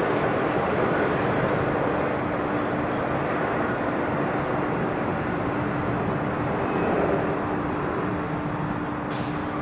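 Airbus A380-861 landing with its four Engine Alliance GP7200 engines running: a steady jet rumble with a constant hum through it, easing slightly as the aircraft touches down and rolls out.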